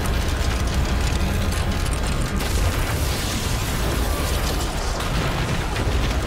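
Sci-fi action sound effects: a dense, loud low rumble with a blast of energy going off, over film score.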